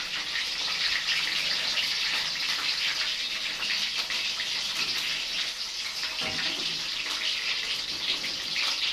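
Food frying in hot oil in a pan: a steady sizzle with many small crackles and pops.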